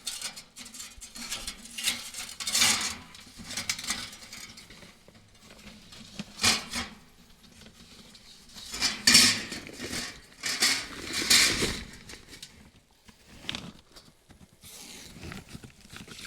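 Irregular clattering and scraping of metal parts as a collapsible smokeless fire pit is taken apart and packed away.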